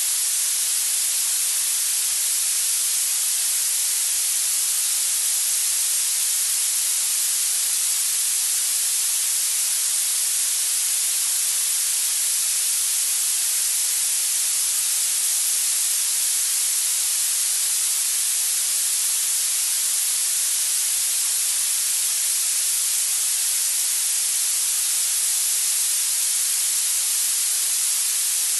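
Steady, high-pitched hiss of continuous masking noise used for tinnitus retraining therapy, even and unbroken, with most of its energy in the treble.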